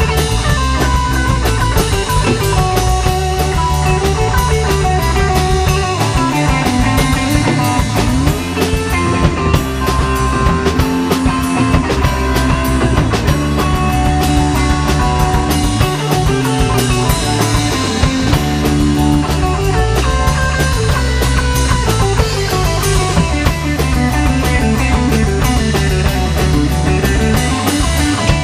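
Live rock band playing an instrumental jam section, with electric guitar, electric bass and drum kit.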